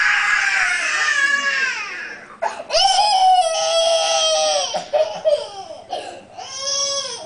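A young child crying, in several long high-pitched wails with short breaks between them, each wail falling in pitch as it ends.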